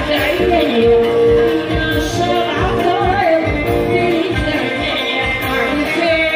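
Loud amplified live Kabyle music: a singer's voice over keyboard and other instruments, with a steady dance beat.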